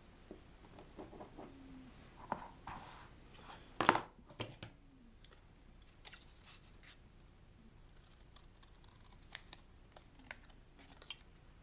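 Large steel scissors cutting a small piece of thin card: scattered snips and short scrapes with pauses between, the loudest snip about four seconds in.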